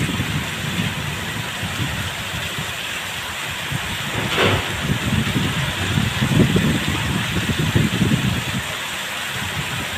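Steady rain pouring down, with low rumbling that swells and fades and a brief sharp crackle about four and a half seconds in.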